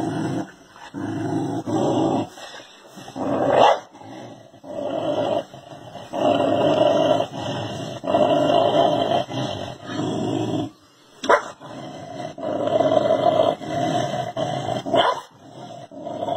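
Dog growling in long, drawn-out runs, broken by a few short sharp noises, as it faces its own reflection in a mirror as if it were another dog.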